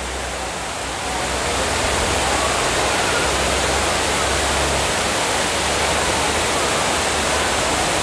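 Broad, tiered waterfall running strong in the rainy season: a steady rush of falling water that grows a little louder about a second in.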